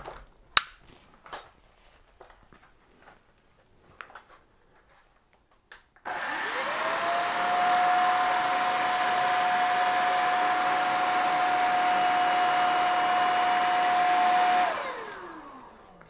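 Plastic clicks and knocks, one of them sharp, as a powered floor brush is fitted to a Vistefly V10 Pro cordless stick vacuum. About six seconds in, the vacuum's 250 W brushless motor switches on, quickly rising to a steady high whine over a rush of sucked air. Near the end it is switched off and the whine falls away as the motor spins down.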